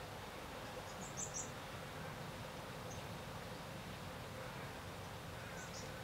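Quiet outdoor ambience: a steady hiss with a faint hum, broken by a few very short high-pitched chirps about a second in and again near the end.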